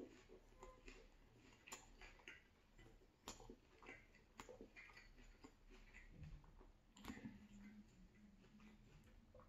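Faint chewing of a soft beef taco, with a few sharp clicks.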